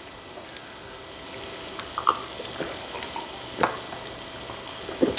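Slices of beef sizzling steadily on an electric tabletop grill, with a few light clicks of tableware.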